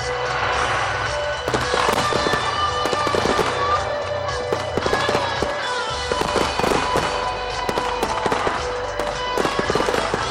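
Fireworks going off in quick succession, many sharp crackles and pops throughout, with music playing underneath.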